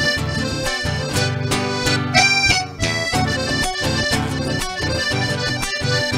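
Piano accordion playing a lively instrumental melody with a steady beat, accompanied by acoustic guitar, with a brighter high note held briefly about two seconds in.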